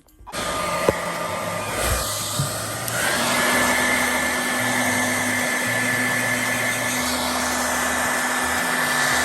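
Hand-held hair dryer switched on and blowing steadily, with a steady whine coming in about three seconds in.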